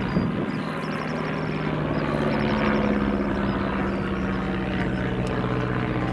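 de Havilland DH.82 Tiger Moth biplane's Gipsy Major four-cylinder piston engine and propeller, running steadily as the aircraft flies overhead; the engine note shifts slightly in pitch about two seconds in.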